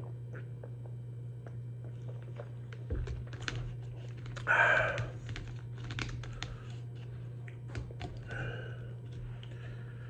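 Thin plastic soda bottle crackling and clicking in the hand as it is lowered from drinking and its screw cap twisted back on, in many small irregular clicks. About halfway through comes a short, loud breathy exhale from the drinker, with a fainter one later. A steady low hum runs underneath.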